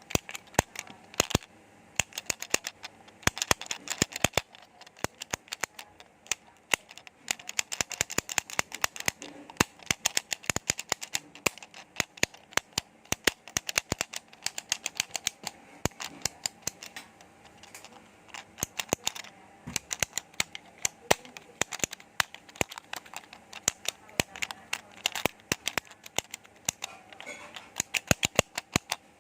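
Sharp, dry clicks in quick, irregular runs of several a second, with short pauses between the runs.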